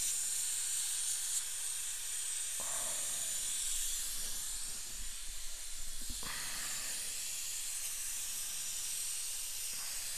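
High-speed dental air-turbine handpiece with a 330 bur running with its air-water spray, a steady high hiss, as it cuts through an old porcelain-fused-to-metal crown. The sound shifts slightly about two and a half and six seconds in.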